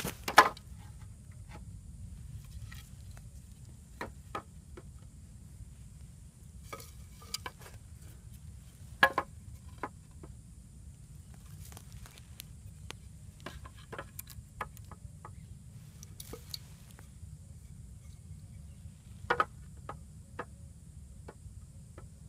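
Dry twigs and branches cracking and rustling as they are handled, in scattered small snaps with louder cracks just after the start, about nine seconds in and about nineteen seconds in.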